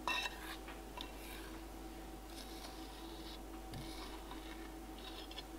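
Metal spoon clicking and scraping against a stainless steel bowl as thick paste is scraped out of it: a few light clicks near the start, then several short scrapes, over a faint steady hum.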